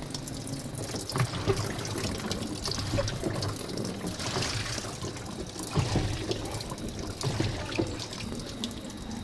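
Tap water running and splashing as a washing machine's lint-filter brush is rinsed under it, with irregular knocks and clatter from handling it.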